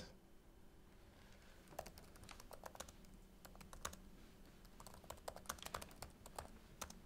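Faint, irregular typing on a computer keyboard, starting about two seconds in.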